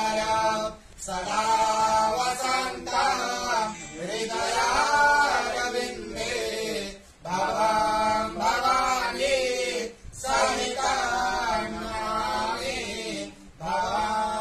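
Sanskrit devotional hymn to Shiva sung slowly, in drawn-out phrases of about three seconds with short pauses between them.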